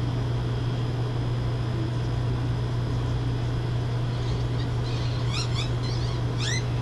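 A steady low hum, with a small bird chirping runs of quick rising notes in the second half.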